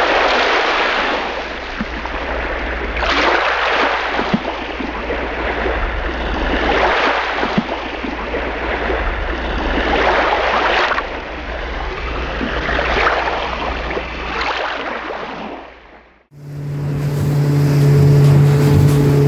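Rushing noise of waves breaking, surging every two to three seconds, then cut off sharply about 16 seconds in. A steady low drone of a boat's outboard engine running underway takes over.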